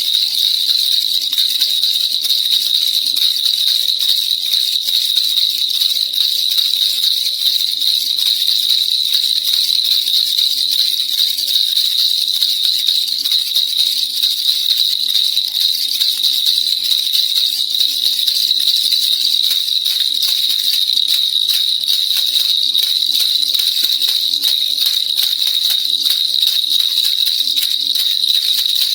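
Baby rattle (kilukiluppai) shaken without pause: a steady, fast, high-pitched jingling rattle.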